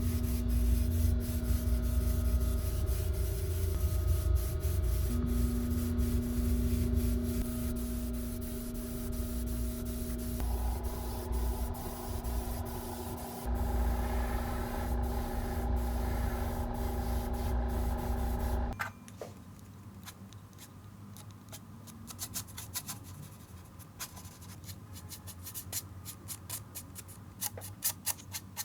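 Small airbrush compressor running with a steady hum while paint is sprayed. It cuts off abruptly about nineteen seconds in, leaving quieter light clicks and taps of handwork that grow more frequent near the end.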